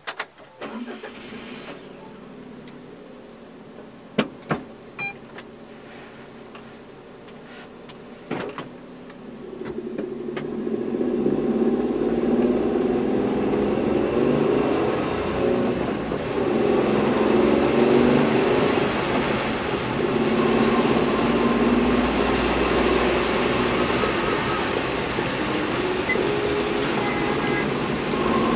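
Suzuki Every kei van with Auto Gear Shift, its three-cylinder 660 cc engine heard from inside the cargo area. The engine starts at the very beginning and idles, with a few sharp knocks. From about ten seconds in the van pulls away and accelerates, and the engine grows louder.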